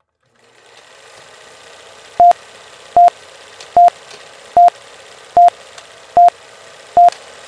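Film countdown leader beeps: seven short beeps of the same single tone, evenly spaced about 0.8 seconds apart, starting about two seconds in. They sit over a steady hiss with faint crackles.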